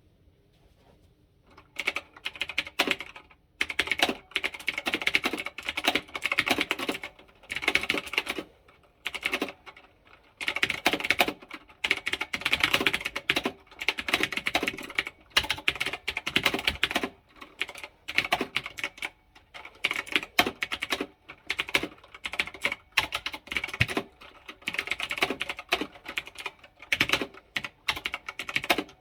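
Typing on a stock, unmodded onn gaming keyboard: fast runs of key clicks in bursts of a second or two with short pauses between. The typing starts a second or two in.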